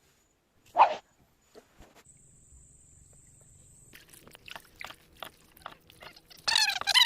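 An animal calling: one loud short call about a second in, then a run of shorter high-pitched calls near the end.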